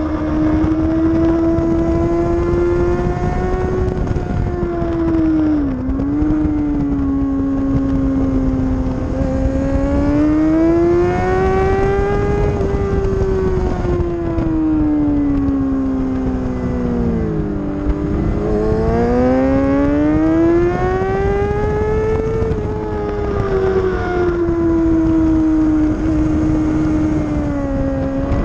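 Kawasaki ZX-6R's inline-four engine running hard on a race track, its pitch climbing in long sweeps under throttle and dropping sharply twice, about 6 s and 18 s in, as the rider brakes and shifts down for corners. A steady rush of wind on the bike-mounted microphone runs under it.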